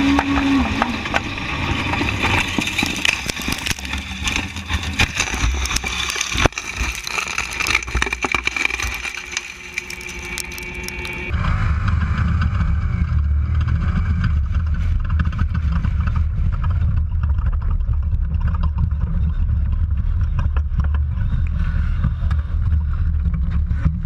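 Race-car onboard sound: engine and rushing wind noise with many short knocks and rattles, the loudest knock about six seconds in. About eleven seconds in, it changes abruptly to a steady low engine drone heard from inside the cockpit.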